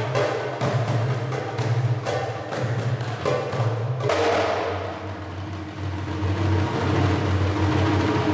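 Egyptian tabla (darbuka goblet drum) played in a fast improvised solo, a dense run of sharp hand strokes. About halfway through, the playing turns into a denser roll.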